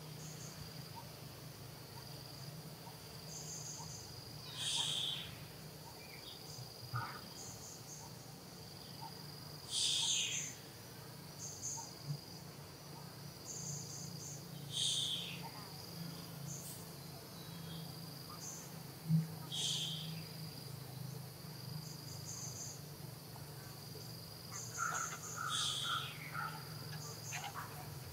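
Insects chirping steadily with a continuous high trill. A short, sharp high call repeats about every five seconds, over a steady low hum.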